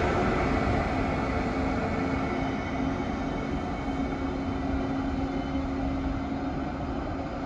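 ICE high-speed train running away along the track, a steady rolling noise with a held hum that slowly fades.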